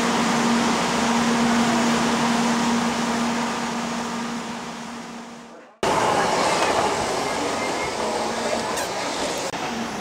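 Steady running noise inside a Shinkansen 700 series driver's cab, with a low hum through it, fading out to silence just before six seconds in. It cuts abruptly to a different stretch of train running noise.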